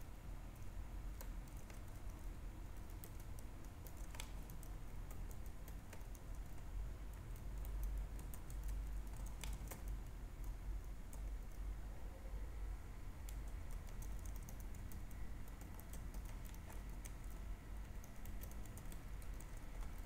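Typing on a computer keyboard: irregular, quick key clicks over a low steady rumble.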